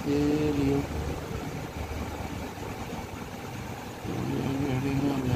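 Car engine idling steadily, with a voice heard briefly over it at the start and again near the end.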